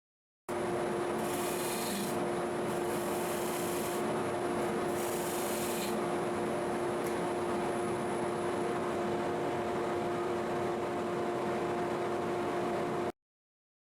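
Wood lathe running with a steady hum while a turning tool cuts spinning Osage orange, with three short scraping passes in the first six seconds. The sound starts and stops abruptly.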